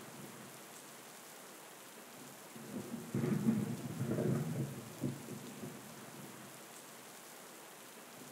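Thunderstorm: steady rain with a low rumble of thunder that rolls in about two and a half seconds in and dies away a few seconds later.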